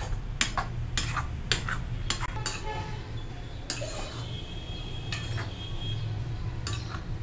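Steel spoon scraping and knocking against a steel kadai as thick mashed brinjal curry is stirred, about two strokes a second. About halfway through comes a metal clink with a thin ringing tone that dies away over a couple of seconds.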